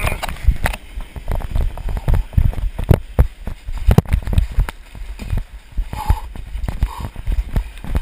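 Handling noise on a handheld GoPro carried into the surf: rapid, irregular thumps and knocks, two or three a second, over the rush of breaking surf.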